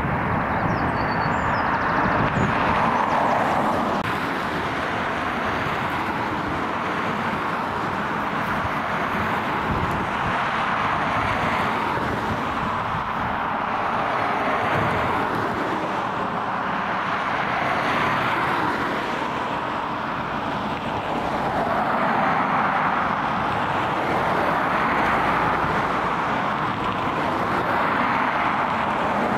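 Jet engine roar of a Boeing 777-300ER's GE90 engines as the airliner rolls out along the runway after landing: a steady rushing roar that swells and eases slowly.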